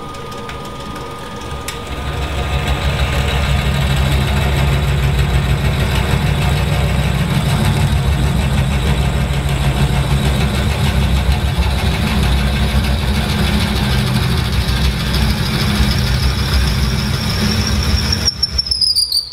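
Wood lathe spinning a bottle stopper blank while a 7/16-inch drill bit in a tailstock drill chuck is fed into the end of the wood, giving a steady cutting noise from about two seconds in. Near the end the cutting stops and a high whine drops in pitch.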